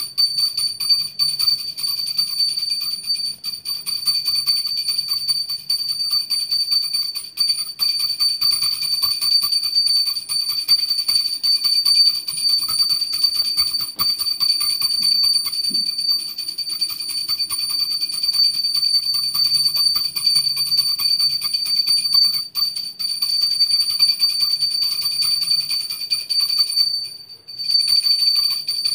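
Pooja hand bell (ghanti) rung rapidly and without a break: a steady, high, bright ringing that stops briefly near the end and then starts again.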